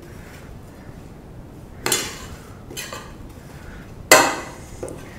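Stainless steel bowl knocking and clanking as candy balls are rolled around in it through coconut shavings: a few sharp metallic knocks that ring briefly, the loudest about four seconds in.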